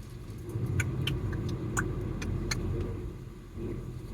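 Steady low road and engine rumble inside a moving car's cabin, with a few sharp, brief clicks every half second or so.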